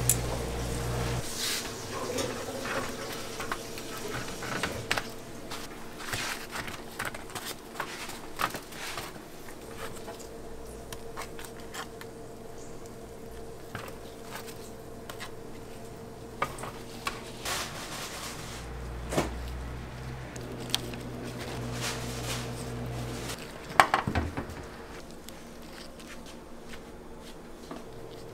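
Kitchen prep clatter: utensils and gloved hands clicking and knocking against stainless steel pans and trays, with scattered sharp knocks and a louder cluster of knocks near the end, over a steady hum of kitchen equipment.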